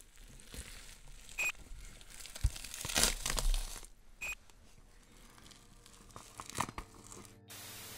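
Sparse crackling and tearing noises with scattered sharp clicks, and two short high chirps, one about a second and a half in and one about four seconds in.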